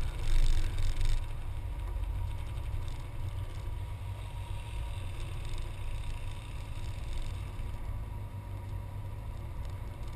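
Turbocharged 5.0 L Coyote V8 of a 2011 Mustang GT idling with a steady low rumble, louder for about the first second.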